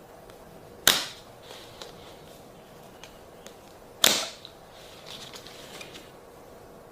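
Two sharp snaps about three seconds apart, each dying away quickly, over a faint steady hiss.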